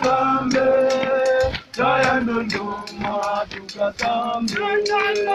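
People singing a chant in long held notes, with sharp beats keeping time about twice a second.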